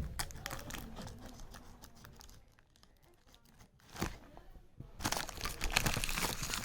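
Packaging crinkling and crackling as it is handled and opened. The sound dies almost away in the middle, comes back with a sharp crackle about four seconds in, then turns to dense crinkling near the end.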